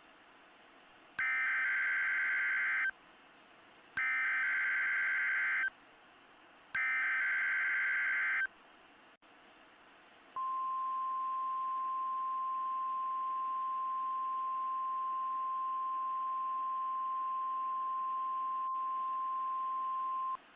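NOAA Weather Radio alert signal: three short bursts of SAME digital header data, each under two seconds and about a second apart. About ten seconds in comes the steady 1050 Hz warning alarm tone, held for about ten seconds over a faint hiss. It marks the start of a weekly weather radio test broadcast.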